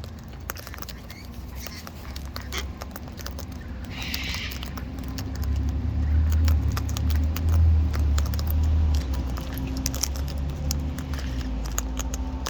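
Birds' beaks rummaging in a bucket of seed: many small clicks and rattles. A low rumble on the microphone is the loudest sound through the middle.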